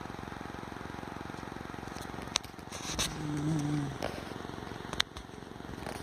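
Dog snoring: a fast, fluttering rattle, broken near the middle by a brief droning tone, with two sharp clicks.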